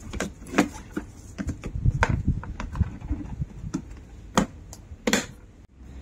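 Plastic clicks and knocks as a corrugated vacuum hose is pressed into the storage clips and channel of a plastic shop vac body. A handful of separate sharp clicks, the two loudest near the end, over soft handling and rubbing noise.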